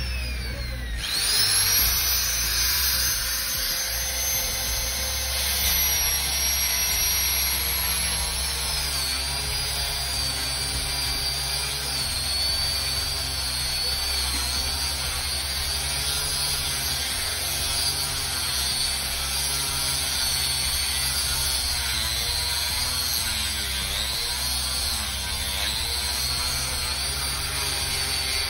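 Handheld electric drilling machine boring holes into granite: a continuous high motor whine that starts about a second in, holds steady at first, then drops in pitch and wavers as the bit cuts into the stone.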